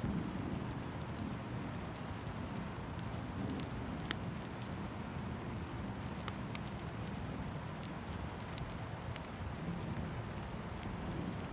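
Steady rain ambience: an even hiss with a low rumble beneath and scattered sharp drip ticks.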